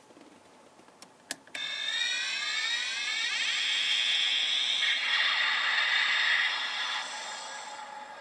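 Electronic sound effect from a Diamond Select Klingon Bird of Prey toy's built-in speaker, set off by two button clicks about a second in. A dense cluster of tones sweeps downward, then holds steady, easing off a little near the end.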